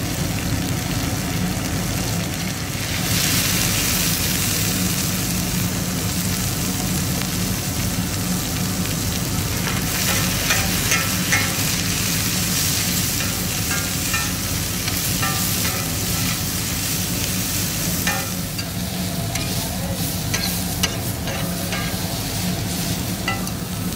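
Sliced onions and green capsicum sizzling on a large flat iron tawa, stirred and tossed with two metal spatulas that scrape and click against the pan. The sizzle gets louder about three seconds in, and the spatula clicks come in quick runs from about ten seconds in. A steady low hum runs underneath.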